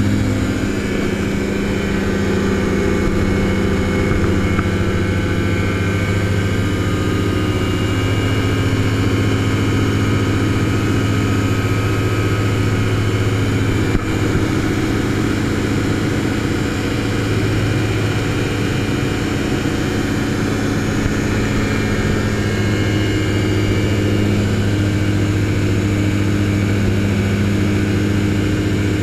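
Ultralight gyrocopter's engine and propeller running steadily in cruise flight, heard from the open cockpit: a constant low drone with a few steady higher engine tones over rushing airflow.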